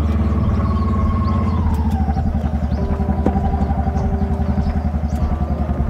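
Three-wheeled motorcycle's engine idling with a steady pulsing beat, one tone in it dropping a little about two seconds in.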